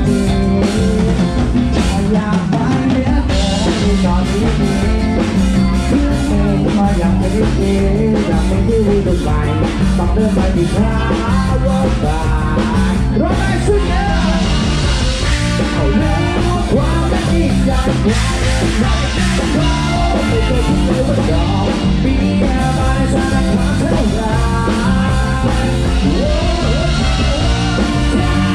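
Live Thai ramwong dance band playing an upbeat song: electric guitars, congas and a drum kit keep a steady dance beat, with a male singer's voice over it.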